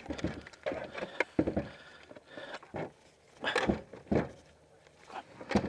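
Irregular knocks, clunks and a scrape of hardware being handled and worked loose on a kayak's trolling-motor mount. The loudest knock comes near the end.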